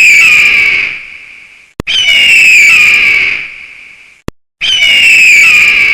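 Eagle calling: three long, loud, harsh screams, each sliding down in pitch and fading out, with a short click before the second and third.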